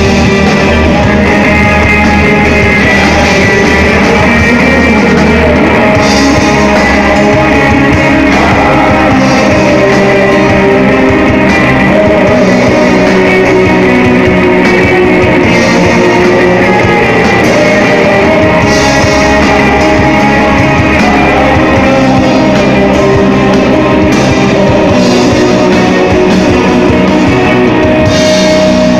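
Live rock band playing loud, with electric guitars, bass and a drum kit.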